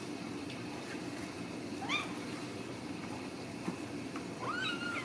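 Ragdoll kittens mewing: two short, high calls that rise in pitch. The first comes about two seconds in; the second, near the end, is longer and holds its pitch after rising.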